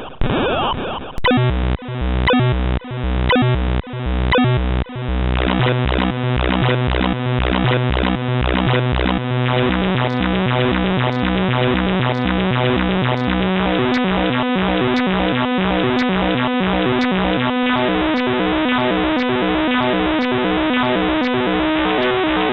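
Harsh synthesized alert tones from a custom-made Emergency Alert System alarm. A dense jangle of rapidly stepping electronic tones starts about a second in, pulsing in sharp bursts under a second apart at first, then running together continuously, with a faint tick about once a second later on.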